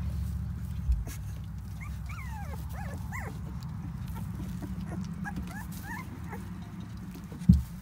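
Young puppies whimpering and squeaking: a string of short, thin, high-pitched cries that slide up and down, over a low steady hum. A small thump about a second in and a louder dull thump near the end.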